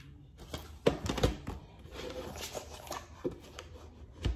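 Plastic DVD cases being handled and set down on a table: a few sharp clicks and knocks with faint handling noise between.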